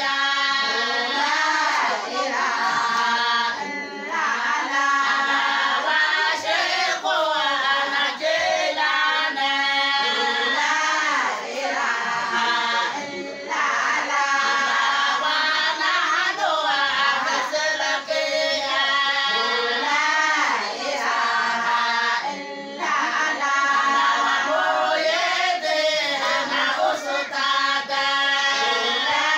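A group of women singing a Somali Bantu song together in sung phrases, with short breaks.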